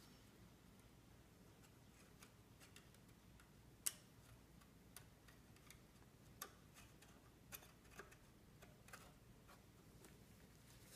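Faint, irregular clicks and ticks of a thin steel palette knife working under lifting brass marquetry elements, prising them from the veneer, with one sharper click about four seconds in.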